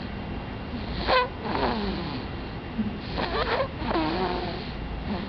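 A sleeper snoring: two snoring breaths, about a second in and about three seconds in, each with a pitch that glides.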